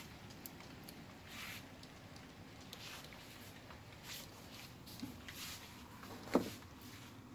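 HO scale model train running on the track: soft rushes recurring about every second and a half with light clicks, and one louder knock about six seconds in.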